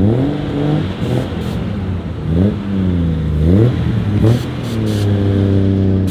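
A car engine revving in a few quick blips, its pitch climbing and dropping several times, then held at a steady raised speed. There is a short sharp sound about four seconds in.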